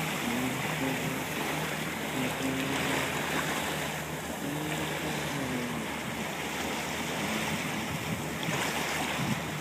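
A boat running across open sea: a steady rush of water along the hull and wind, with gusts buffeting the microphone.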